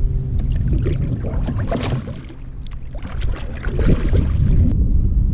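Steady low rumble of wind on the microphone, with brief noisy scrapes and splashes from handling aboard a fishing kayak, about two seconds in and again near four seconds.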